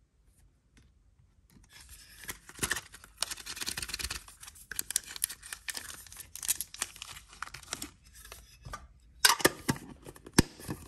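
Foil booster-pack wrappers crinkling and rustling as they are handled and pulled from a small metal tin. Near the end come two sharp clacks of the metal tin.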